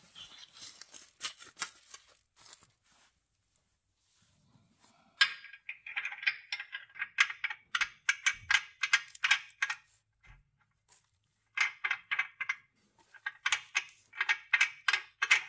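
A small package of stainless steel M24 × 2 mm lock nuts is torn open with a faint crinkle. Then a nut is spun by hand onto the mini excavator's threaded track tensioner rod, making rapid metallic clicking in several runs as it rides the threads.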